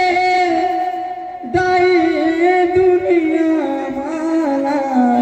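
Panthi devotional folk song: a lead singer holds long, wavering notes, breaking off briefly a little over a second in, with a few soft strokes on a barrel drum.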